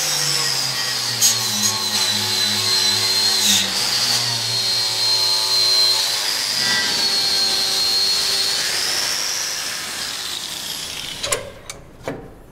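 Angle grinder with a Norton Blaze Rapid Strip disc descaling a steel box section: a high motor whine that drops in pitch while the disc bears on the metal and rises again as it lifts off. The grinder dies away about ten seconds in, and a couple of sharp knocks follow near the end.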